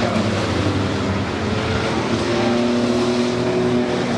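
Engines of racing pickup trucks running hard on a short oval as two trucks pass side by side; the engine pitch climbs a little past the middle.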